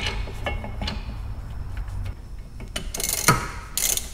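Ratchet wrench clicking in short runs as the caliper bracket bolts are run in on a brake hub, with a few loud strokes near the end.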